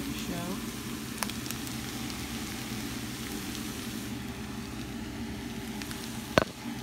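Potatoes and onions sizzling steadily as they fry in oil in a pan. There is a small click about a second in, and near the end a single sharp knock, the loudest sound, as a utensil strikes the pan.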